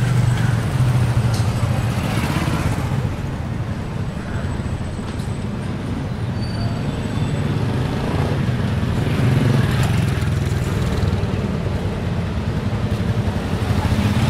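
Motorcycle and car engines running slowly in close street traffic, a steady low engine hum.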